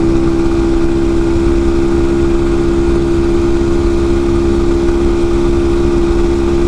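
The 127cc single-cylinder four-stroke engine of a Chinese YX127CF sportbike running hard at a steady, high speed, its note held level throughout, over a constant low wind rush at around 60 to 65 mph.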